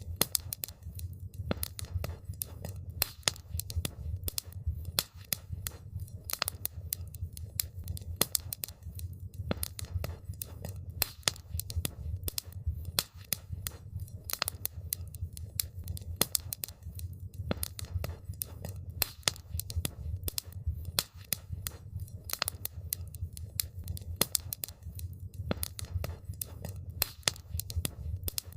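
Campfire burning wood, crackling with irregular sharp pops and snaps, several a second, over a steady low rumble.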